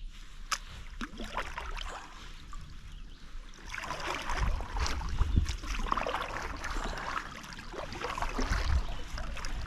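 Water splashing and lapping against a kayak's hull as it moves, getting louder about four seconds in.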